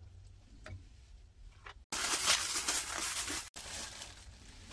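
Soft handling clicks, then loud crackling of a thin plastic food pack that starts abruptly about two seconds in and lasts about a second and a half, followed by softer rustling.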